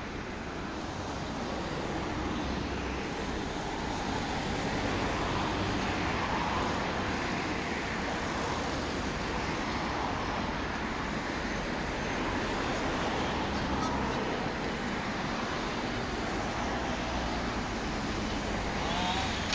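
Steady engine rumble from a working excavator mixed with road traffic noise.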